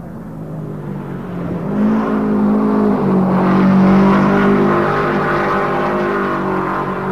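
Several speedcars (midget racing cars) racing together, their engines rising in pitch and growing louder as the pack comes closer, loudest about four seconds in.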